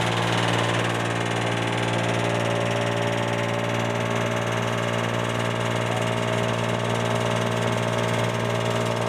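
Tractor-driven wood and cotton-stalk cutting machine running steadily, the tractor engine and cutter making one even drone while branches are fed in.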